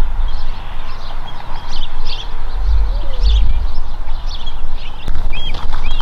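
Small birds chirping over and over, a short chirp every half-second to second, over a strong, uneven low rumble. Near the end a different, clearer curved chirp joins in.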